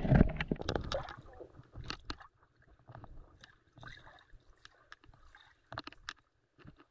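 Water churning loudly around a camera as it goes under in a river, then the muffled underwater sound of the swimmer moving: faint crackles and clicks of bubbles and water against the housing.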